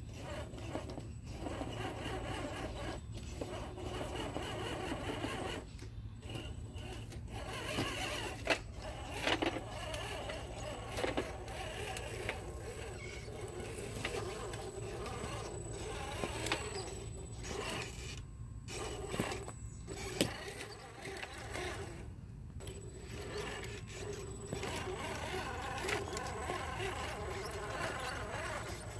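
Electric motor and geared drivetrain of an RC4WD Toyota Hilux scale crawler whining as it crawls over rocks, the pitch wavering with the throttle and cutting out briefly several times. A few sharp knocks or clicks stand out.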